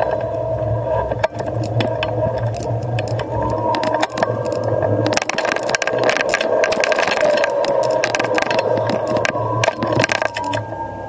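Dualtron Eagle Pro electric scooter riding down a ribbed concrete ramp: its tyres rumble over the ridges while the scooter rattles, with many sharp clicks and knocks and a steady motor whine throughout.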